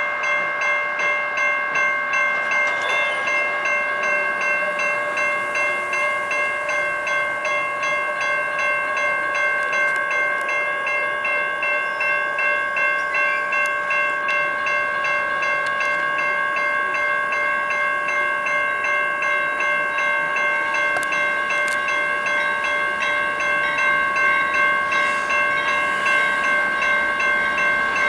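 Railroad grade-crossing warning bell ringing continuously with an even, rapid repeating ding while the crossing signals are activated.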